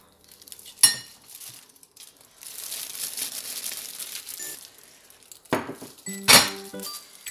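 A sharp glass clink about a second in, then the crinkling rustle of a plastic kitchen glove, then several ringing knocks of glass and plastic against the glass blender jar near the end.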